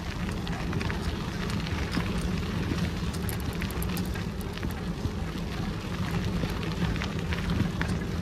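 Bicycle rolling along a forest path: the tyres make a steady noise with many small clicks and ticks, over a steady low rumble.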